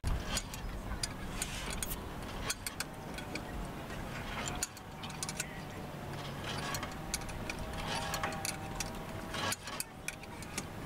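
Irregular small clicks and taps of hands and a small tool working on a sailboat's masthead fitting while the halyard block and anchor light are fitted.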